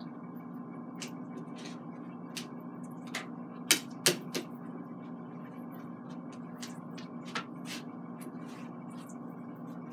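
Paper towels rustling and crinkling as raw salmon fillets are pressed and patted dry on a paper plate, with scattered light clicks and taps, two sharper ones a little under four seconds in. A steady low hum runs underneath.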